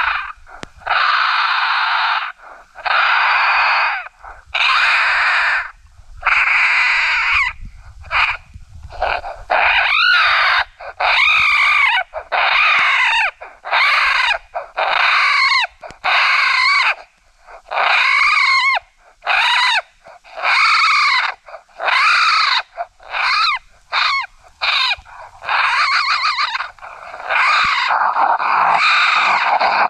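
Adult raccoons fighting, the kind of brawl call used to lure raccoons in. Long harsh screeches of about a second each come first. They give way to a quick run of shorter squalls, more than one a second, each rising and falling in pitch. A longer screech comes again near the end.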